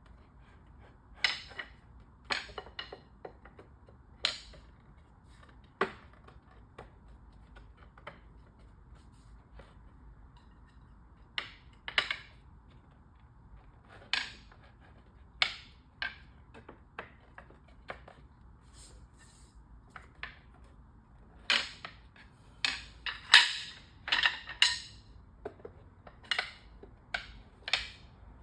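Irregular sharp knocks and clicks as a playpen section is worked down onto its dowels a little at a time, with a quicker run of knocks a little past two-thirds of the way through.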